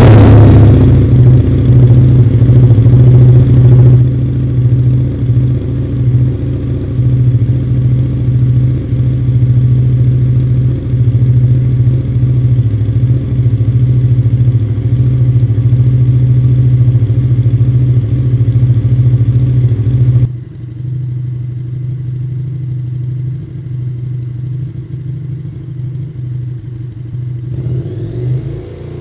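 KTM 1290 Super Duke R's V-twin, breathing through an Akrapovic Evo Line titanium exhaust, idling just after a cold start. It runs loudest and highest for the first few seconds, then settles into a steady lumpy idle. About two-thirds through it abruptly gets quieter, and near the end its pitch starts to rise as it is revved.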